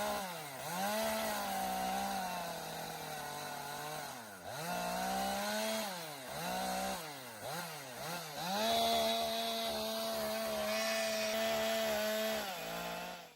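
Chainsaw cutting timber at high revs, its pitch dropping and picking up again several times, then held steady for about four seconds before slowing; the sound cuts off suddenly at the end.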